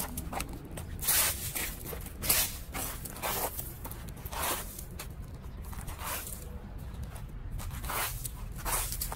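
Footsteps scuffing and crunching through dry leaves and seed pods on pavement, a rustling crunch about once a second, with leaves kicked along the ground.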